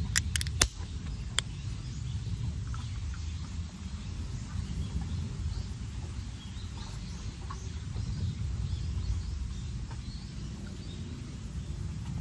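A few sharp metallic clicks in the first second and a half from the tab of an aluminium drink can being worked open, then a carbonated drink being poured into a thin glass, with faint crackling fizz over a low steady outdoor rumble.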